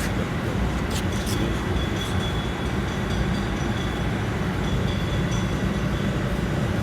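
Steady low mechanical rumble, with two short sharp clicks about a second in.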